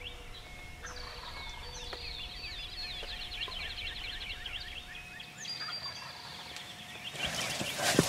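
Wild turkey gobblers gobbling, mixed with other bird calls of the dawn chorus. A louder rustle of movement comes near the end.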